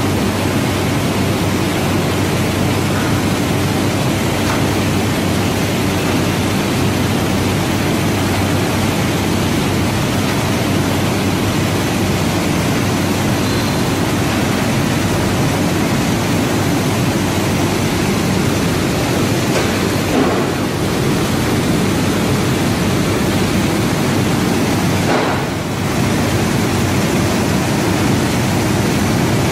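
Mushroom pre-cooking (blanching) machine line running: a loud, steady noise of machinery and steam with no distinct rhythm, dipping briefly about three-quarters of the way through.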